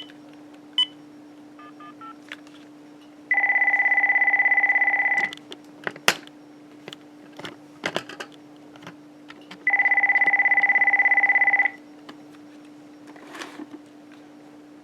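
Keypad tones as a number is dialled on a cordless phone handset, then an electronic telephone ringer warbling twice, each ring about two seconds long and about four seconds apart, with a few handling clicks between the rings and a steady low hum underneath.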